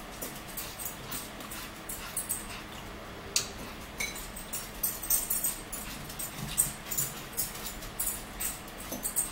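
Close-up eating sounds: irregular wet chewing and mouth clicks, with a few sharper clicks of a fork on a plate.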